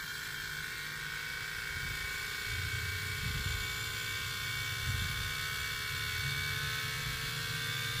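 HVAC vacuum pump running steadily, its note rising slightly, as it pulls an empty refrigerant recovery cylinder down into a vacuum.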